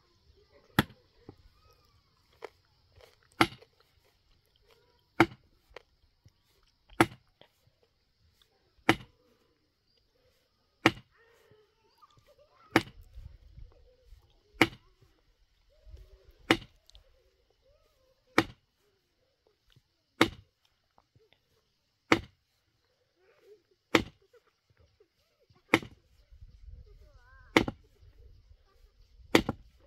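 Rock being broken by hand: single sharp hammer blows on stone about every two seconds, in a steady rhythm that keeps up throughout.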